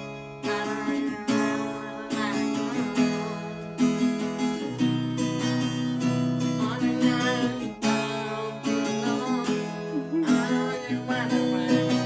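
Background music: strummed acoustic guitar with sustained chords and a steady pulse.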